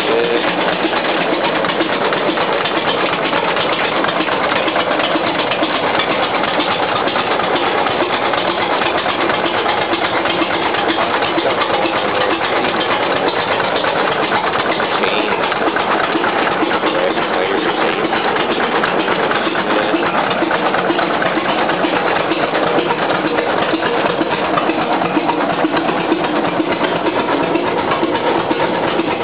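Aultman & Taylor gas tractor engine idling steadily with a fast, even beat, its belt pulley turning.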